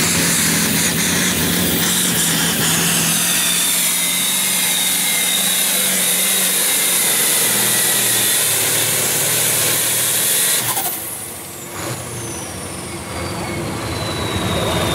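Oliver farm tractor engine running hard under full load, pulling a weight-transfer sled. About two-thirds of the way through it throttles back and goes quieter, and a high whistle slides down in pitch as the engine winds down at the end of the pull.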